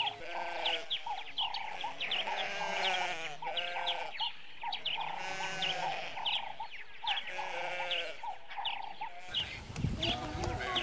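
A flock of bleating livestock calling over and over, the calls overlapping, with small birds chirping throughout.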